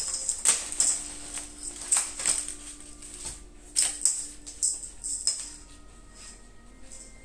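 Paper bags crinkling and rustling in irregular bursts as a cat paws, pushes into and rolls on them, louder in the first few seconds and then softer. Soft background music with held notes plays underneath.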